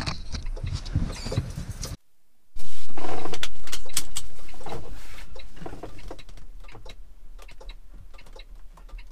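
Clicks and rustling in the truck cab. About two and a half seconds in there is a short dropout, then a loud low rumble starts abruptly and eases off over the next few seconds: the Detroit DD15 diesel of a Freightliner Cascadia starting and settling.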